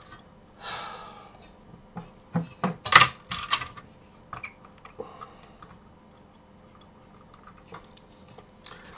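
Light clicks and taps of hands handling thin wires and fiddling over a computer circuit board, with a brief rustle about a second in and a cluster of sharp clicks around three seconds in, the loudest a single sharp click.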